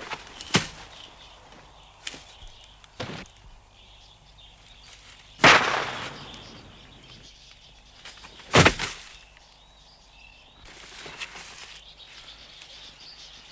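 Gunfire: two loud shots with ringing tails about three seconds apart, after two fainter sharp cracks, over a background of birds.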